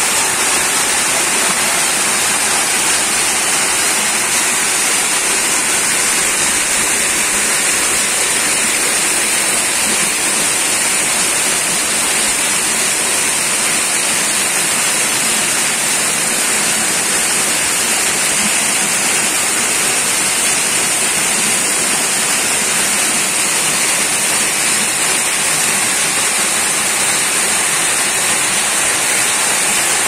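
Water rushing and splashing over rock ledges of a waterfall: a loud, steady hiss that does not change.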